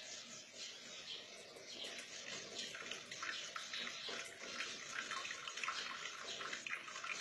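Water running from a tap and splashing over cupped hands into a stainless steel sink, growing stronger from about two and a half seconds in.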